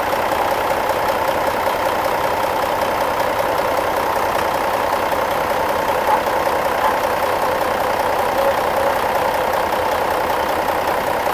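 Truck engine idling steadily, an even drone that holds at one level without revving.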